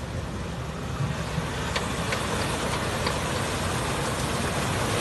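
Nissan Patrol 4x4's engine running under load as it pushes through deep mud, growing a little louder toward the end.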